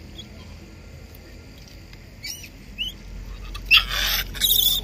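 Gray langurs squabbling over food: a few faint high squeaks, then two loud harsh squeals close together near the end.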